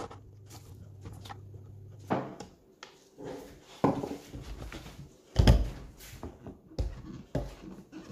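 A hand screwdriver clicks as the truck's mounting screws are driven into a surfskate deck. Then come separate knocks and thumps as the board is handled and set down on its wheels on a wooden table, the heaviest about five seconds in.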